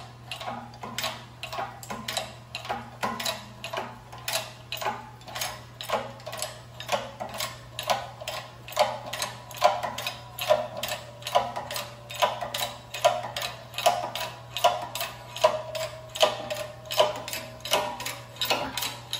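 Hand-pumped bottle-jack hydraulic shop press being worked in steady strokes, about one a second. Each stroke is a metallic clack from the pump handle and linkage with a short squeak, as the ram pushes the worn front wheel bearing out of the steering knuckle.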